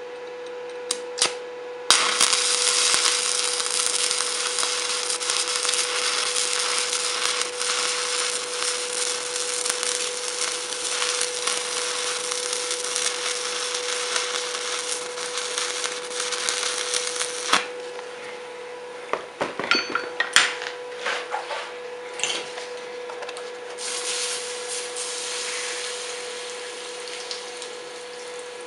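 Stick welder's arc crackling and hissing steadily as a bead is laid: it strikes about two seconds in and cuts off suddenly after about fifteen seconds. A few sharp knocks and clicks follow, then a shorter hiss near the end, with a steady hum underneath throughout.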